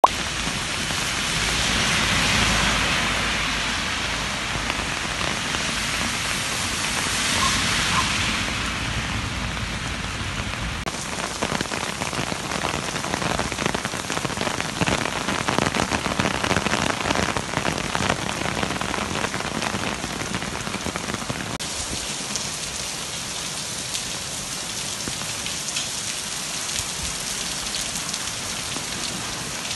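Heavy rain falling on wet stone paving: a steady dense hiss with many separate drop hits. The sound changes abruptly twice.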